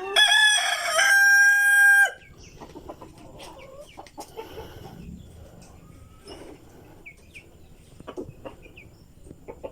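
A Philippine native rooster (manok bisaya) crows once, the call holding one pitch and cutting off suddenly about two seconds in. Quieter scattered chirps and clicks follow.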